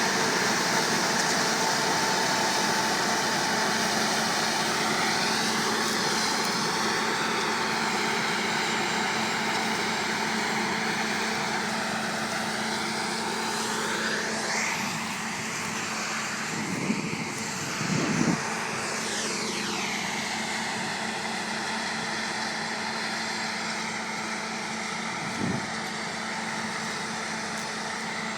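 Combine harvester running steadily while harvesting oilseed rape, its pitch sweeping up and down several times, with a few short knocks partway through.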